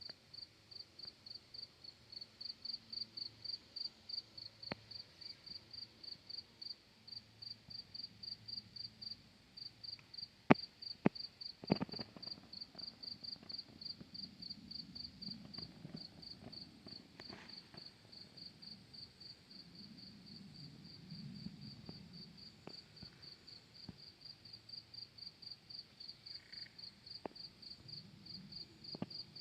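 A cricket chirping steadily and evenly, about three to four chirps a second. A few sharp clicks about ten to twelve seconds in are the loudest sounds.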